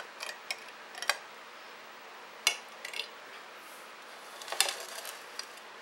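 Cutlery and ceramic plates clinking and knocking on a wooden table as a steak knife and plates are handled: a scattering of single light knocks, with a small cluster about four and a half seconds in.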